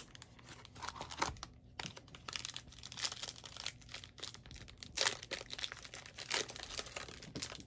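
Plastic cello-pack wrapper of a trading-card pack being torn open and crinkled by hand, in irregular crackles as the cards are worked out of it.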